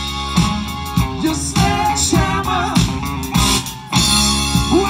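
Live rock band playing through a PA: electric guitar, drums and a singing voice. The music thins out for a moment shortly before four seconds in, then the full band comes back in loud.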